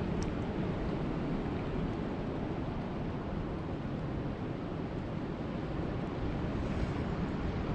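Steady rushing of rain sound-effect ambience, heaviest in the low range, with no single drops standing out.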